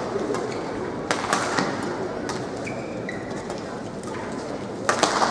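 Badminton rally: sharp racket strikes on the shuttlecock and footwork knocks, about a second in and again near the end, with two brief high squeaks of shoes on the court mat in the middle, over the steady noise of a large hall.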